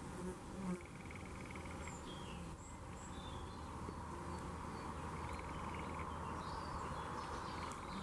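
Narrow-bordered bee hawkmoth's wings humming low and steady as it hovers at flowers. Faint high chirps and short buzzy trills come and go.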